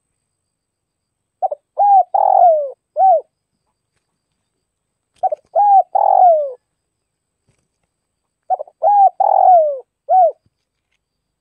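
Spotted dove cooing: three phrases a few seconds apart. Each phrase is a few quick short notes, then a longer falling coo and a short closing note. The second phrase ends on the long coo.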